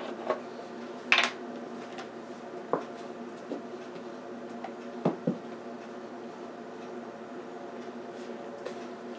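Plastic ketchup squeeze bottle being handled: its cap opened and the bottle turned over and squeezed above a plastic bowl. This gives a few sharp plastic clicks and knocks, the loudest about a second in and a pair about five seconds in, over a steady low hum.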